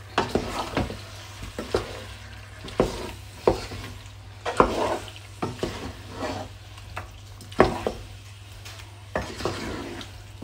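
Wooden spoon stirring chicken curry in a nonstick pot, scraping and knocking against the pan at irregular moments while the chicken, tomatoes and ginger sizzle in the oil, over a steady low hum.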